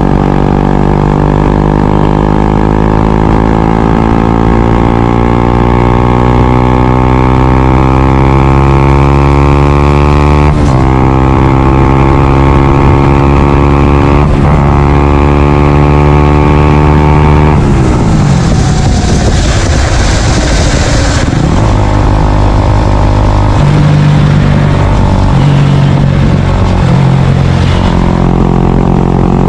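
Honda CBR125R/150R single-cylinder engine through a Yoshimura R77 full exhaust system, accelerating with its pitch climbing steadily, with two gear changes that briefly drop the pitch before it climbs again. About two thirds of the way through the throttle is rolled off and the exhaust note turns rough and uneven.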